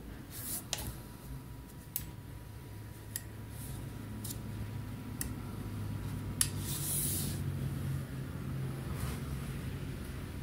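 Sharp clicks, about half a dozen spread out, as the fire selector on a full-metal replica SPR rifle is turned between safe, semi and auto, with some handling rub. A low steady hum runs underneath.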